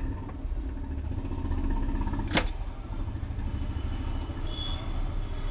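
A steady low rumble, like a vehicle engine running nearby, with one sharp click about two and a half seconds in and a faint high steady tone starting near the end.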